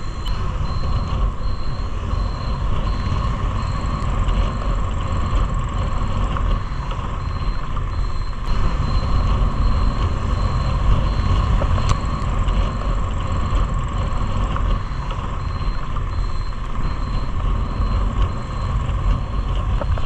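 Motorcycle riding on a wet road: the engine runs under a steady wind rumble on the microphone and tyre hiss, with a faint high beep repeating evenly a little faster than once a second.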